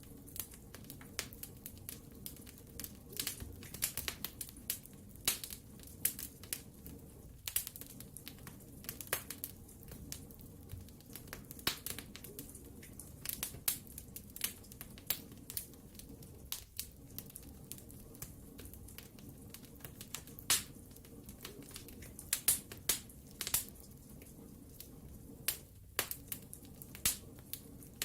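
Wood fire crackling: irregular sharp pops and snaps, sometimes several in quick succession, over a steady low rumble of the burning.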